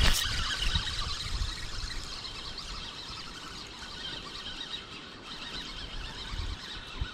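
Spinning reel being cranked to retrieve a cast jerkbait: a continuous fine whirring after a sharp snap right at the start, with uneven low wind rumble on the microphone.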